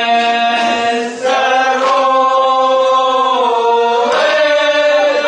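Voices chanting in long held notes, changing pitch after a short break about a second in and again near the end.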